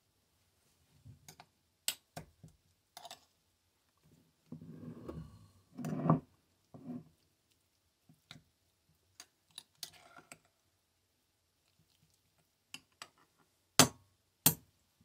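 Metal spoon clinking and scraping against a small ceramic bowl as food is stirred. About five seconds in there is a duller knock and scrape, and near the end two sharp taps.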